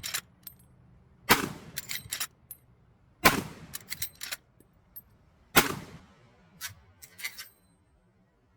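Three rifle shots from a Marlin 1895 SBL lever-action rifle in .45-70, about two seconds apart, each followed by a few shorter, quieter clicks and knocks.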